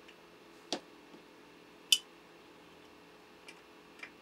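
New metal bobbin case being fitted into the hook of a Consew 226 industrial sewing machine: a few scattered light clicks, the loudest about two seconds in.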